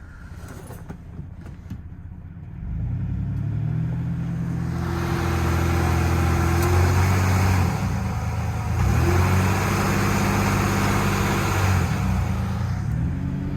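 Car engine pulling away and accelerating, its hum growing louder after a couple of quieter seconds. The pitch drops and climbs again about two-thirds of the way in and once more near the end, as at gear changes.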